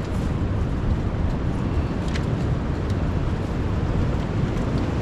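Steady low wind rumble on the microphone, with a few faint light ticks.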